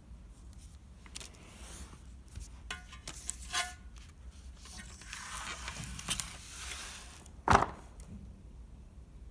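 Olivetti Lettera 32 portable typewriter being handled: scattered mechanical clicks and short rattles, with a single sharp knock about seven and a half seconds in.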